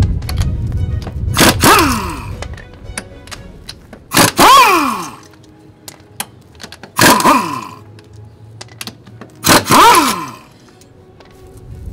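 Air impact wrench with a 3/4-inch socket loosening a wheel's lug nuts in four short bursts about two and a half seconds apart. Each burst is a whine that rises and then falls away.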